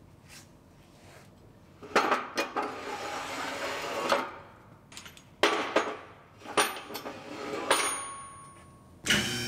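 Heavy steel pinch weld clamps clanking and scraping against the frame rack as they are slid into position, a string of sharp metal knocks that ring briefly. Just before the end an electric motor starts humming steadily as the frame rack lift is raised.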